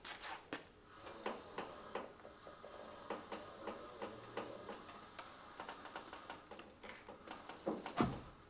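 Light metallic clicks and ticks of hand tools working on car hardware, a few a second at an uneven pace, with a couple of louder knocks near the end.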